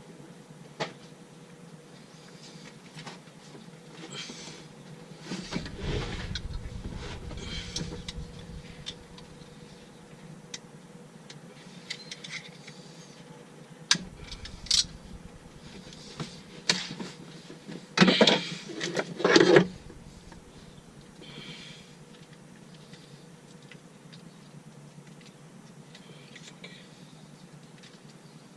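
Fuel-pump parts being handled during an install: scattered clicks, knocks and scraping, with a louder cluster of rattling scrapes about two-thirds of the way through, over a faint steady hum.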